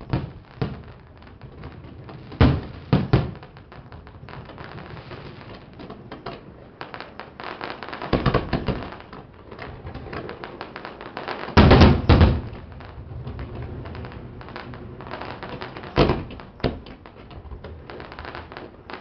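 Fireworks going off in an irregular run of sharp bangs. Dense clusters come about eight and twelve seconds in, the loudest around twelve seconds, over a steady background hum.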